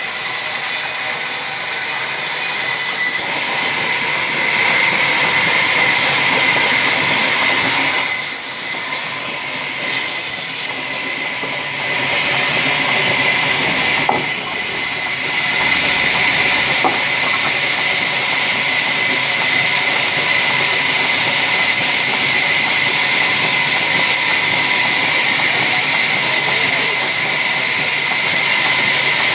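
Vertical band sawmill running and cutting lengthwise through a large log: a loud, steady hissing whine with a high ringing tone. The sound eases briefly a few times about a third of the way in, then runs on steadily.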